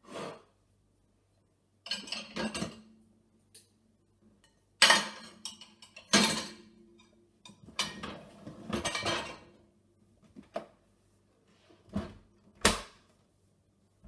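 Ceramic plates clattering and clinking against each other and the wire rack as they are stacked into a dishwasher, in several separate bursts; near the end two heavier knocks as the dishwasher is closed.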